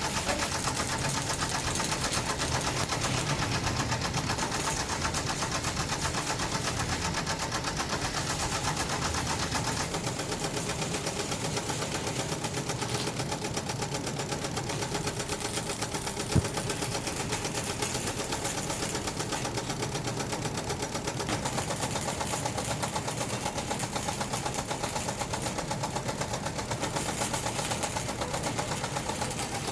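Factory machinery running steadily with a fast, even mechanical rattle, and a single sharp click about sixteen seconds in.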